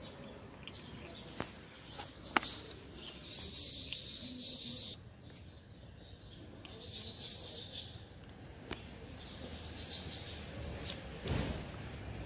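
Small birds chirping in bursts over outdoor background noise, with a few sharp clicks and a rustle near the end.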